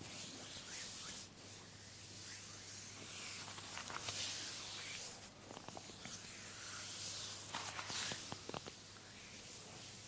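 Massage hands rubbing and scratching on skin and hair: soft swells of hissy friction noise, with a few small clicks about four seconds in and again later.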